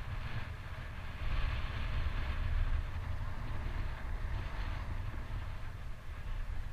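Skis hissing and scraping over groomed snow during a downhill run, louder between about one and five seconds in, over a steady low rumble of wind buffeting the helmet-mounted microphone.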